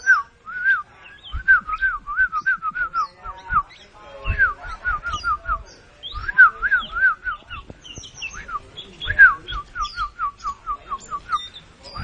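Caged Oriental magpie-robin (kacer) singing in bursts of short, quick whistled notes, several a second, repeated every couple of seconds. There are a few soft low knocks beneath.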